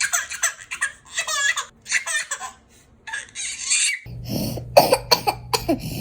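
A baby laughing in short high bursts for about four seconds. It then gives way to a young child coughing several times in sharp bursts over a steady low hum.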